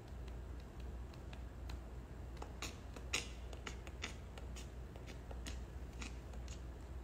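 Scattered light clicks and taps at an irregular pace, the loudest about three seconds in, over a faint low hum.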